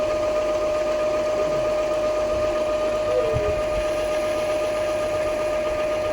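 A small motor running steadily, giving a constant mid-pitched whine over a hum.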